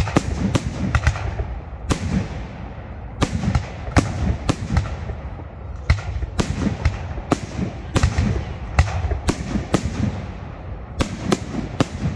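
Fireworks display: aerial shells bursting in quick, irregular succession, about two sharp bangs a second, each with a rumbling echo trailing off between them.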